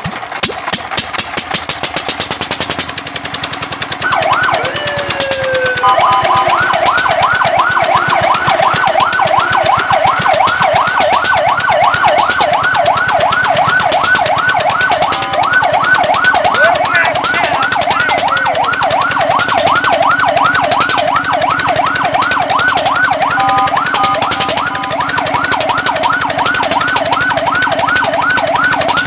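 Fire truck siren starting up with one slow rising and falling wail about four seconds in, then switching to a fast yelp that sweeps up and down about three to four times a second. The yelp breaks briefly into a steady tone twice. Before the siren starts, a rapid mechanical clatter is heard.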